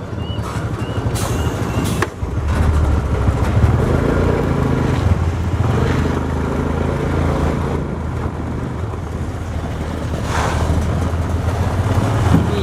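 Heavy diesel engine running steadily, getting louder about two seconds in.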